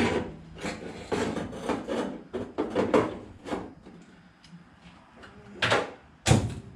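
Hands and tools rubbing and scraping against the bare sheet-metal pillar of a stripped truck cab in a run of irregular strokes, then two loud clunks of tools being handled near the end.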